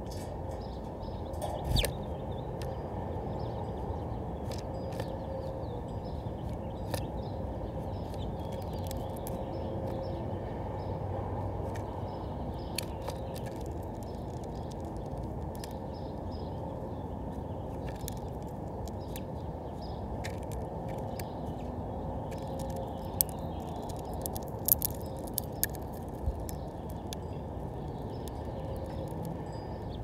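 A house finch on a seed-tray feeder, pecking and handling sunflower seeds: scattered sharp clicks and taps, busiest and loudest between about 23 and 26 seconds in, over a steady low hiss. A single thump comes about two seconds in.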